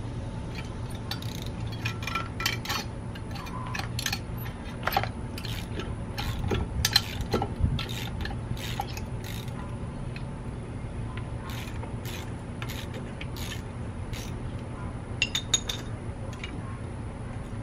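Irregular metallic clinks, clicks and scraping of a wrench working on a car's disc brake caliper, with a cluster of sharper clanks in the middle and a few more near the end, over a steady low hum.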